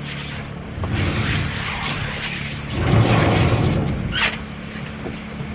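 Wind rumbling on the microphone as a door is pushed open to the outside, getting louder about three seconds in, with a brief high squeak about four seconds in.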